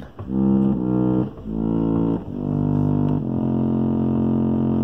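1890s Chicago Cottage model 555 reed pump organ played on its Diapason stop: a short run of notes and chords changing about once a second, then a chord held from about three seconds in.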